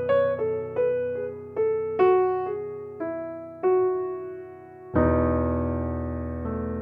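Background music: solo piano playing a gentle melody of single notes, about two a second, stepping downward. A held chord comes in about five seconds in and slowly fades.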